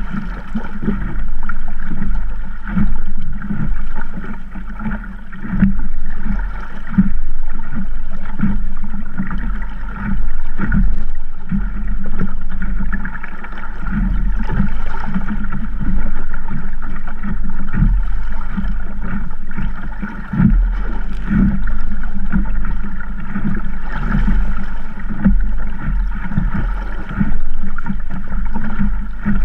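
Sabot sailing dinghy under way in a 10–15 knot breeze: wind buffeting the camera microphone in uneven gusts, with water rushing and splashing along the hull.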